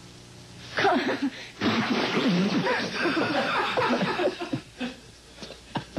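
People laughing: a short laugh about a second in, then about three seconds of laughter that trails off.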